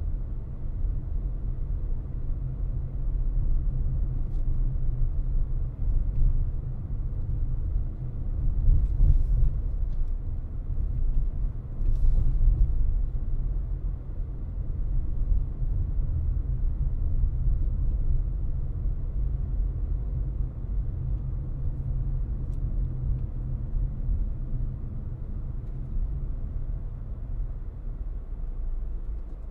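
Steady low rumble of a car driving: road, tyre and engine noise. It swells louder twice, about a third of the way in and again a few seconds later.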